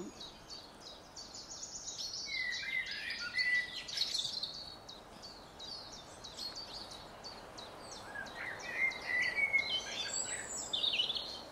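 Small woodland songbirds singing: a steady run of short, high chirps, with two fuller warbling song phrases, one about two seconds in and one towards the end.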